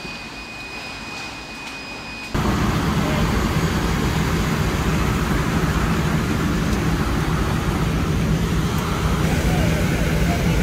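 A quieter stretch with a steady high tone, then from about two seconds in a loud, steady rushing noise of a fire hose stream playing on a burning building, with a steady low drone under it.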